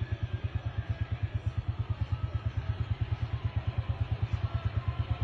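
An engine running steadily with a fast, even low thudding, about a dozen beats a second.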